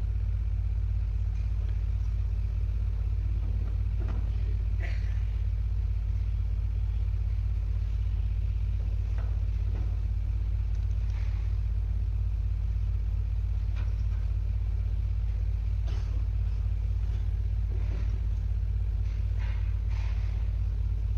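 A steady low rumble that does not change in level, with a few faint short sounds scattered through it.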